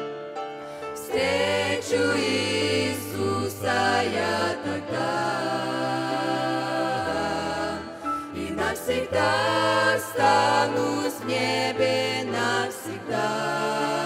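A mixed group of young women and men singing a Russian-language worship song in harmony into microphones, over sustained low accompanying notes.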